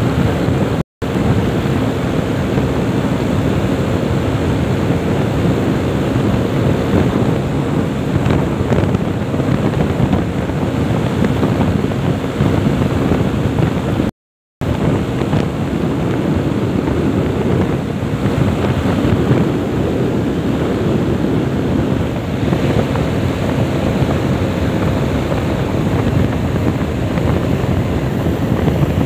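Wind rushing over the microphone of a motorcycle cruising at about 100 km/h, with the engine's steady drone underneath. The sound cuts out briefly twice, about a second in and again about halfway through.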